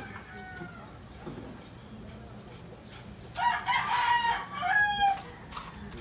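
A rooster crows once, loud, beginning about three and a half seconds in and lasting nearly two seconds. Fainter bird calls come in the first second.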